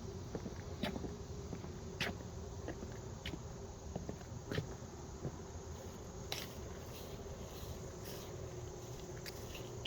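Crickets and other insects chirring steadily, with footsteps on a dry trail about every second.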